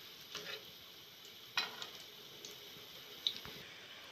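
Rose-shaped mathri (maida dough) deep-frying in moderately hot oil in a kadhai, with a steady sizzle. Three light knocks of a ladle against the pan come as they are turned, the loudest about a second and a half in.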